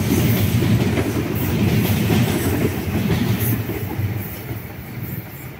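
Electric commuter train passing close by: a loud rumble of wheels on rails with a few sharp clacks. The sound falls away over the last two seconds as the last cars go past.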